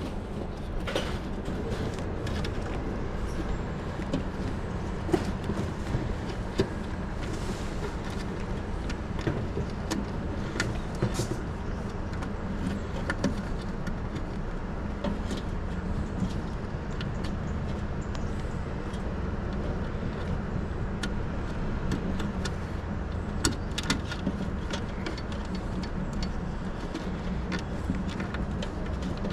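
Steady low hum with scattered sharp clicks and knocks of parts and tools being handled during work on an air conditioner's circuit board.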